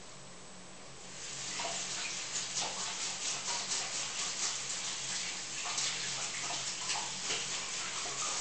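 Kitchen tap running into the sink, the water splashing unevenly as something is rinsed under it; it starts about a second in.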